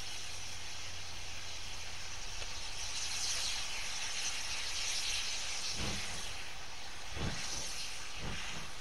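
Steam locomotive letting off steam with a steady hiss that grows louder a few seconds in. A few dull low beats come near the end.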